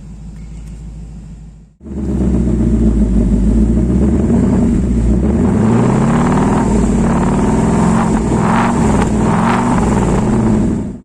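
Ford Mustang Mach 1's 5.0-litre V8 exhaust in its track (pista) sound mode. It runs at a low idle, then, after a brief break about two seconds in, is loud and revved up and down several times.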